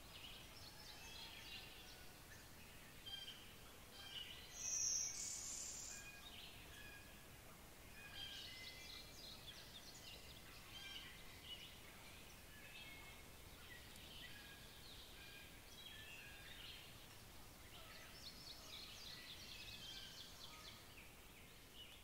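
Faint songbirds singing throughout, many short high notes overlapping. About five seconds in, a louder high buzzy song stands out, a blue-winged warbler singing.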